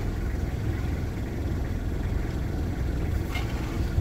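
Engine of a light training truck running steadily at low revs, heard from inside the cab as the truck moves slowly. A short click comes near the end.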